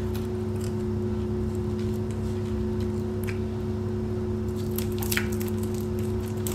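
Close-up chewing and biting of crisp cucumber slices, with a burst of crunching about three-quarters of the way through, over a steady low electrical hum.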